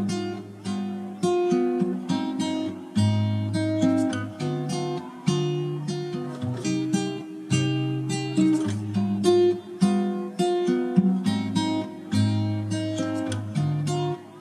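Background music: a guitar playing a steady run of plucked notes that ring and fade one after another.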